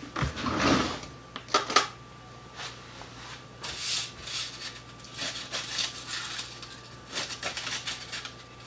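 Aluminum foil crinkling and rustling irregularly as it is handled on a kitchen counter, with a few sharp knocks in the first two seconds. A steady low hum runs underneath.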